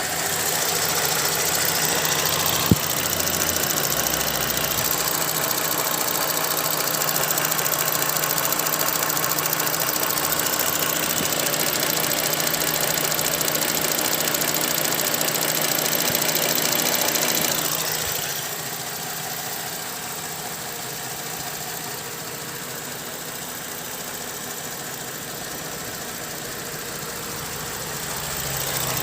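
Holden VZ Commodore engine idling with a fast, even ticking, which others have told the owner is the evap solenoid, though he wonders whether it is the lifters. A single sharp click comes about three seconds in, and the sound turns quieter and duller from about eighteen seconds on.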